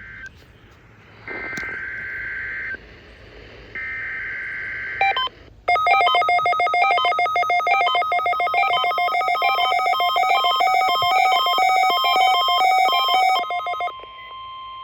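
NOAA Weather Radio alert tones for a Required Weekly Test. There are two buzzy two-tone digital header bursts, each about a second and a half, then about eight seconds of loud electronic beeping that jumps rapidly between pitches in a repeating pattern. A quieter steady tone comes in near the end.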